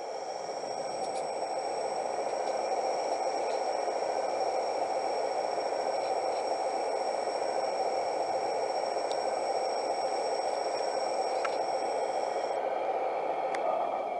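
Suction unit of an RC 1:15 scale suction-excavator truck model running steadily: an even rushing hum with a thin high whine that stops about twelve seconds in.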